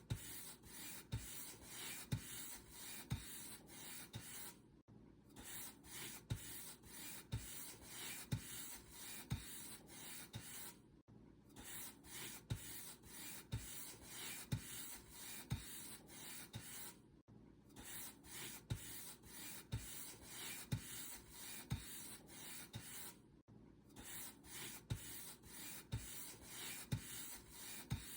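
Paintbrush bristles brushing over a surface in repeated dry strokes, about two a second, with a short break roughly every six seconds.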